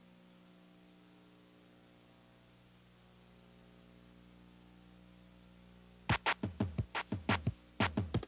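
Electronic music: a faint steady drone of several held tones, then about six seconds in a fast, uneven run of sharp synthesized percussive hits, each dropping quickly in pitch.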